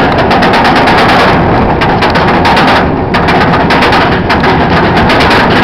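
Chain lift of a Bolliger & Mabillard stand-up roller coaster, heard loud and close from on board as the train climbs the lift hill: a rapid, continuous clattering of the chain and anti-rollback dogs.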